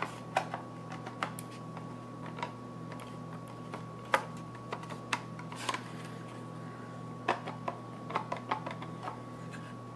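Irregular light clicks and taps of a graphics card's cooler shroud and card being handled, shifted and turned over as the shroud is worked loose, over a steady faint hum.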